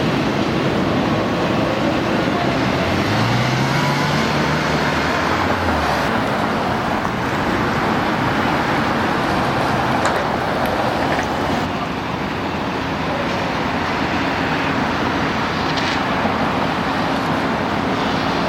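Steady road traffic passing, with one vehicle's engine rising in pitch about three seconds in and dropping away a few seconds later.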